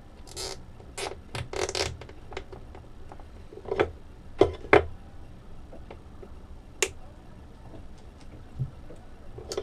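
Hand tools and wires being handled on a workbench: a few short rustles, then several sharp taps and knocks as tools such as needle-nose pliers are picked up and set down, and a single click a few seconds later.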